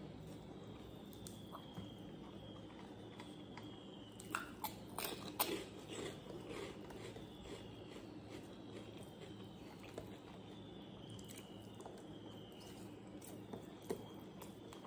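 Quiet eating sounds of a rice meal with crushed papad, eaten by hand from a steel plate: scattered soft crunchy clicks, busiest about four to six seconds in.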